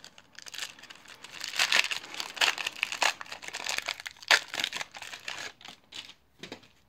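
Foil wrapper of a baseball card pack being torn open and crinkled by hand: a dense, rapid crackling that lasts about five seconds and fades out with a few last crinkles near the end.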